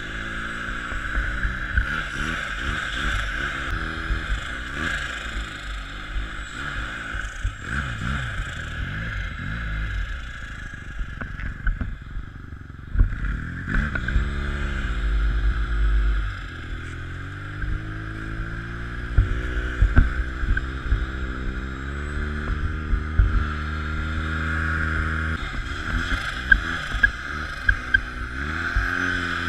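Snowmobile engine running under way, its pitch rising and falling with the throttle and climbing steadily about halfway through, with wind rumble on a helmet-mounted microphone.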